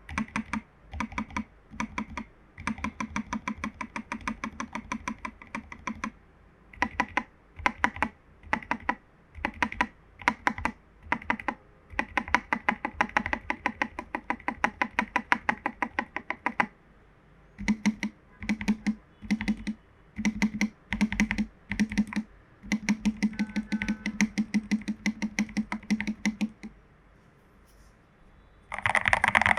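Typing on a foam-modded Royal Kludge RK84 mechanical keyboard with lubed Jelly Strawberry v2 linear switches and XDA keycaps: fast runs of keystrokes broken by short pauses and single presses, with a longer pause near the end.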